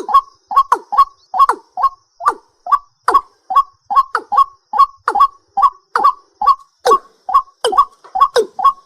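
A night bird calling a rapid, even series of short, loud notes, about two to three a second, over a faint steady high-pitched hum.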